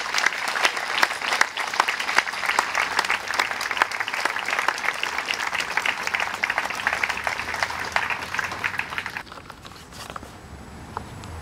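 Audience applauding, a dense run of hand claps that dies away about nine seconds in.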